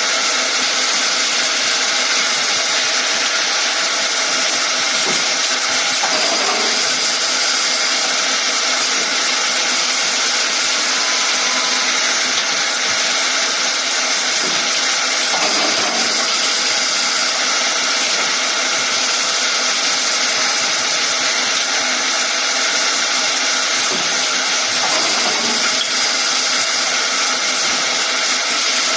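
Automatic wood shape milling machine running steadily, its high-speed cutter spindles whining constantly over a dense cutting noise.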